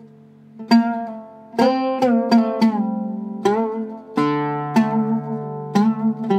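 Oud with a cedar soundboard and La Bella strings played solo with a plectrum: a slow melodic phrase of separate plucked notes, each left to ring and fade, with a few slides in pitch between notes.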